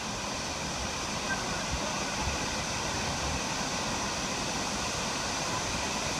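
Waterfall's steady rushing roar of falling water.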